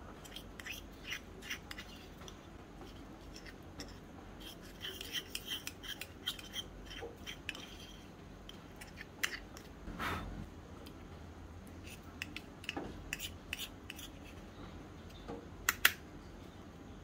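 Small metal spoon stirring and scraping inside a miniature steel kadai: irregular light scrapes and clinks. Near the end come two sharp clinks close together, the loudest sounds, as the pan is tipped over a small steel plate.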